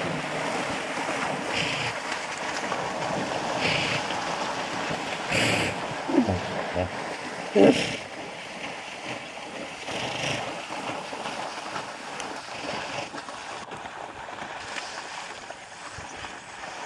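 Water splashing and churning as a hippopotamus charges through shallow water and reeds, surging every couple of seconds. Two short pitched sounds come a little past halfway, the second the loudest moment.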